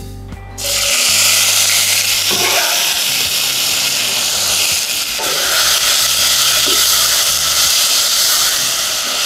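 Chopped onion sizzling in hot olive oil in a pot as it starts to sauté. The sizzle begins suddenly about half a second in and then carries on steadily and loudly.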